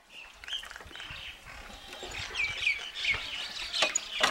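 Small birds chirping, many short falling chirps one after another, with a couple of sharp clicks near the end.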